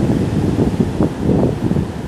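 Mediterranean surf breaking and washing up a sandy beach, with wind buffeting the microphone in gusts.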